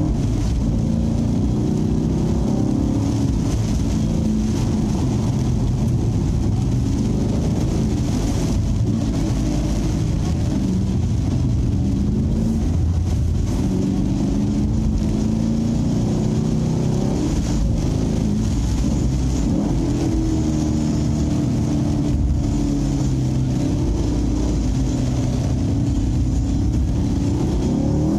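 Chevrolet Camaro SS 6.2-litre V8 heard from inside the cabin, pulling hard and easing off again and again as it laps, its pitch climbing and falling. A steady hiss from the wet track runs under it.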